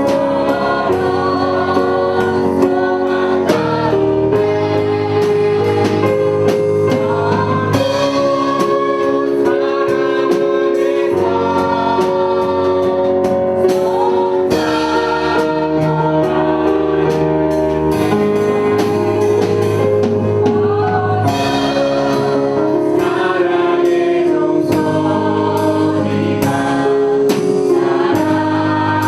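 A church choir singing a gospel hymn in harmony, with instrumental accompaniment and a sustained bass line.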